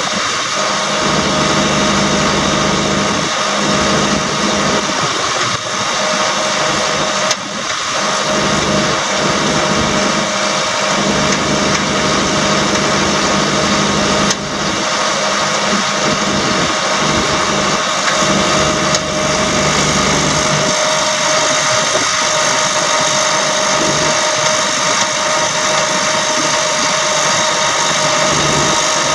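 A service truck's Caterpillar 3126 diesel engine running steadily, with a steady high whine on top, while the Maintainer hydraulic crane on its bed slews around.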